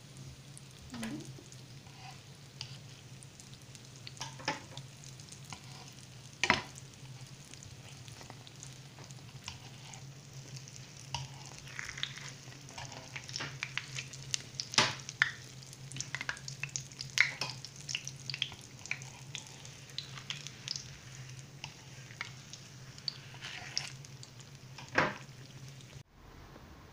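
A yeast-dough beignet frying in hot oil in a pan: a steady sizzle with scattered pops and crackles that get busier in the second half, over a low steady hum. The frying cuts off about a second before the end.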